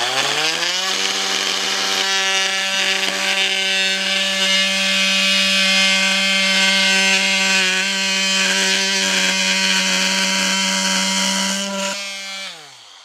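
Cordless Milwaukee M18 oscillating multi-tool spinning up with a rising whine, then running steadily with its blade cutting into a board. It winds down with a falling pitch near the end.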